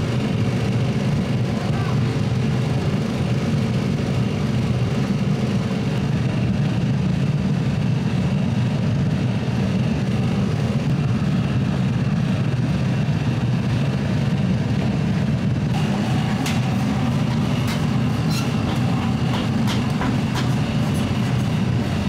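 Steady, loud, low machine rumble that does not change, joined about two-thirds of the way in by a run of short, sharp metallic clicks and taps.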